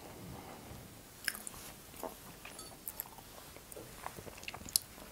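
Close-up mouth sounds of someone chewing a mouthful of soft cake with lips closed: faint wet clicks and smacks, scattered and irregular. Near the end a sip of tea from a mug brings a quick cluster of clicks, one of them sharper.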